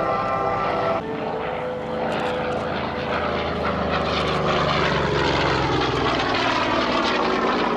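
F4U Corsair's radial engine and propeller running steadily as the fighter flies by, the engine note falling in pitch in the second half as it passes.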